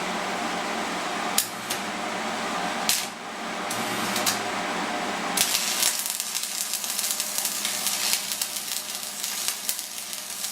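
Stick-welding arc from a 6013 electrode laying a bead: a steady hiss with a few sharp pops, turning about halfway through to a dense, even crackle.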